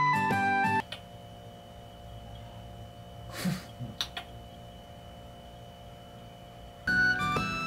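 Background music breaks off, leaving a quiet room with a steady electrical hum. A brief soft rustle comes a little before halfway, then two faint clicks, and the music comes back near the end.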